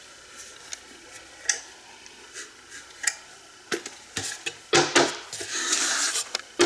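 Handling a small wooden IKEA LÄTT children's chair: scattered light knocks and clicks of wood parts, then from about two-thirds of the way in a closer run of knocks and rubbing as the chair is moved and checked.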